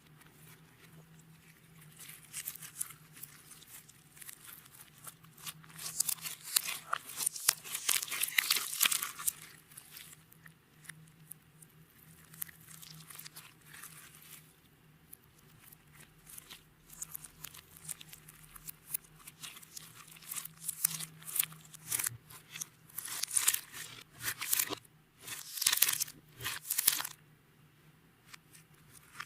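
Hands kneading and stretching clear slime with glitter and beads mixed in: bursts of wet crackling and popping, loudest from about six to nine seconds in and again between about twenty and twenty-seven seconds.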